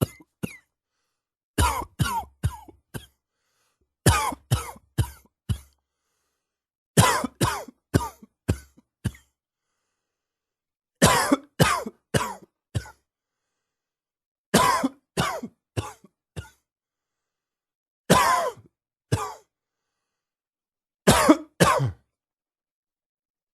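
A man coughing in about eight bouts of three to five coughs each, with a few seconds of silence between bouts: a morning cough, clearing the lungs after waking.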